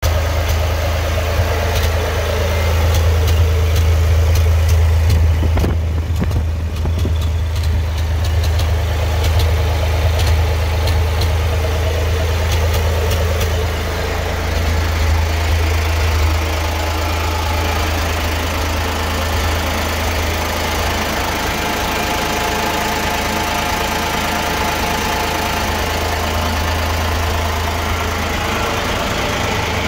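1970 Massey Ferguson 135's gasoline engine idling rough and misfiring, with sharp irregular ticks over the first nine seconds or so. The misfire persists despite new spark plugs, plug wires, condenser and points, and its cause is unknown to the owner.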